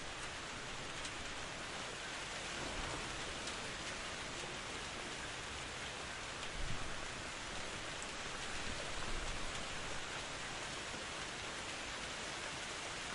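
Steady rain falling, an even hiss with faint scattered drop ticks, briefly a little louder about halfway through.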